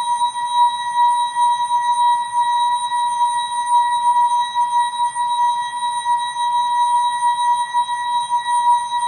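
ASKfm notification sound effect slowed down and time-stretched into a sustained drone: one steady high-pitched tone with fainter higher overtones, holding without change.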